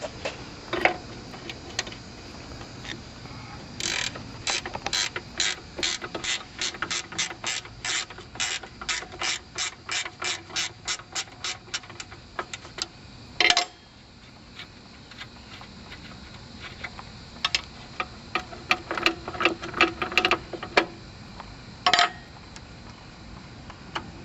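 Socket ratchet wrench clicking in quick even strokes, about three a second, as it loosens the bolt holding the emergency brake on a lawn tractor. After a pause there is a shorter second run of ratcheting, with a louder metal clank after each run.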